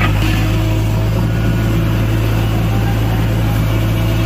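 Diesel engine of a JCB backhoe loader running steadily with a loud low drone.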